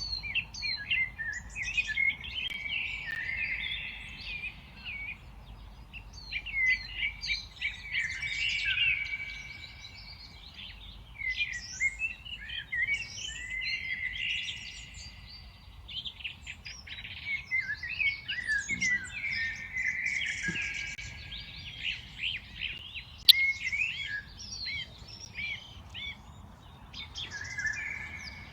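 Several kinds of songbirds singing and chirping together in a dense, overlapping chorus of short whistled phrases, over a faint low background rumble. A single sharp click cuts through about two-thirds of the way in.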